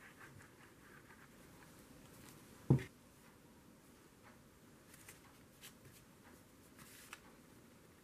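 A plastic glue bottle set down on a tabletop with a single dull thump, a little under three seconds in, amid faint rustling and light clicks of cardstock and fabric being handled.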